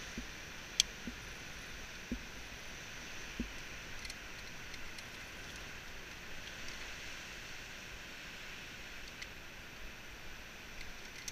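Climbing rope and hardware being handled at a cliff anchor: a sharp click about a second in and a few soft knocks, over a steady rushing background noise.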